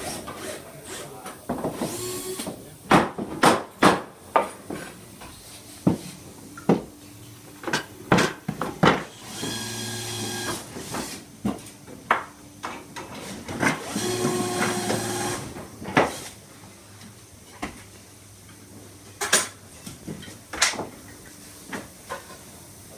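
Woodworking bench sounds: sharp knocks and taps of hand tools on timber, coming fast around three to four seconds in, and a cordless drill whining in two short runs of a second or two near the middle.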